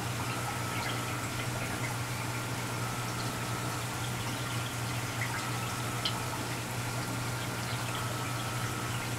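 Reef aquarium's running water: a steady trickling and splashing with small scattered drips, over a low steady hum.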